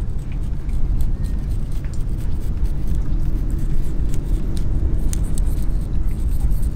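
Loud low rumble that rises and falls, with a few faint high clicks.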